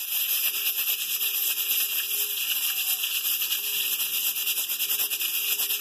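Pressure cooker's weighted valve hissing steadily with a fast flutter as steam escapes: the cooker is up to pressure and cooking.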